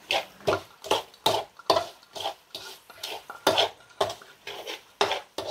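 Metal ladle scraping and stirring sugar and spices around a wok, about two strokes a second, while the sugar is cooked until it burns to a dark caramel for colour.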